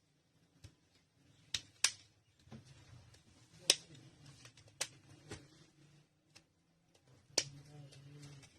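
Sharp plastic clicks and snaps of a keypad mobile phone's housing being opened, about seven scattered clicks, the loudest near the middle and near the end.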